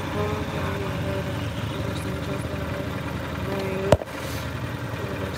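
Golf cart driving along, a steady low running noise, with a single sharp click about four seconds in.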